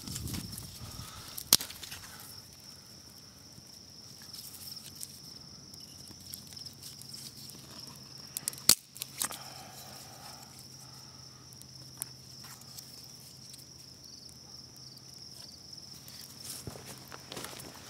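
Small campfire of fatwood and dry sticks burning, crackling with a few sharp pops scattered through, several of them near the end. A steady high-pitched drone runs behind it.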